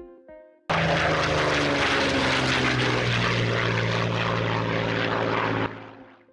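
Spitfire propeller engine running at a steady roar. It starts abruptly less than a second in and cuts off sharply about a second before the end.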